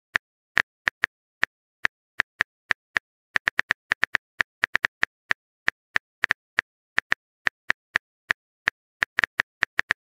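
Phone keyboard typing sound effect: a rapid, irregular run of short sharp taps, about four a second, with silence between them.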